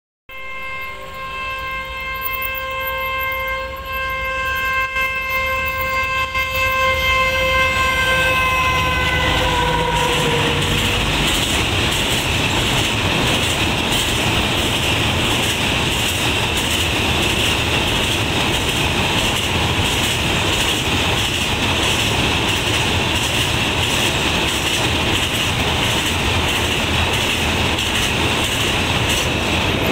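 KTM Class 29 diesel locomotive sounds one long horn blast for about ten seconds. The horn drops in pitch as the engine passes. The train then rolls by close and loud, with wheels clacking steadily over the rail joints.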